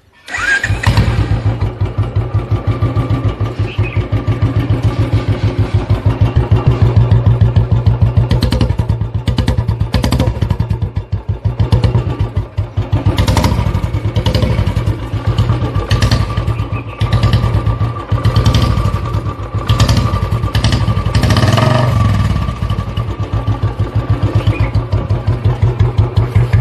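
Royal Enfield motorcycle engine starting up just after the beginning, then running with a rapid, even exhaust beat, its throttle opened and closed a few times.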